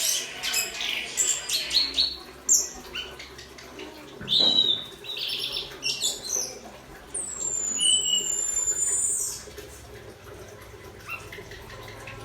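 Orange-headed thrush (anis kembang) singing: a varied run of short chirps and whistles, with several high notes that sweep downward in pitch.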